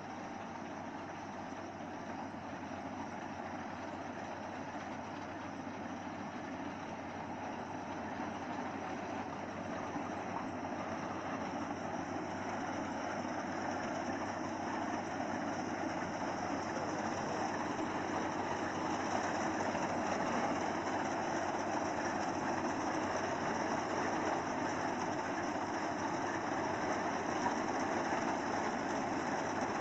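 Yanmar AW82V rice combine harvester running steadily as it cuts through standing rice. It grows louder as it approaches.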